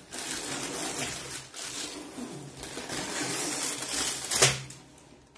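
Sealed plastic bags of Lego pieces crinkling and rattling as they are handled and pulled out of a cardboard box, with one louder knock about four and a half seconds in.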